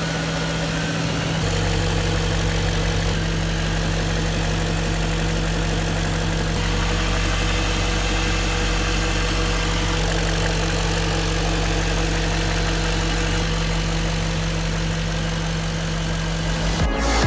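BMW 540i engine idling steadily and evenly, with its noise problem repaired.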